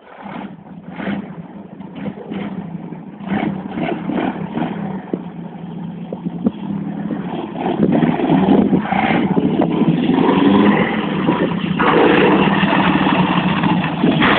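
Home-built chopper trike's engine running, uneven and popping at first, then running steadily and getting louder as the trike comes closer.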